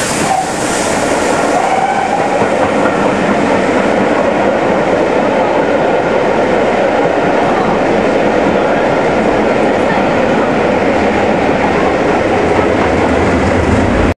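Passenger coaches of a steam-hauled train rolling slowly past on the main line, a loud, steady rumble of wheels on rail with faint high tones riding over it.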